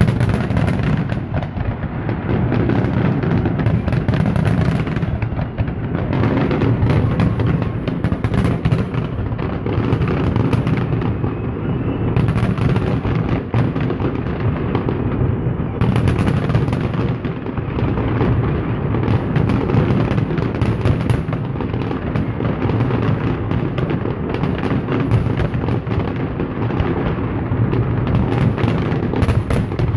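Large aerial fireworks display: a dense, continuous barrage of shells bursting, with deep booms and crackles overlapping without a break.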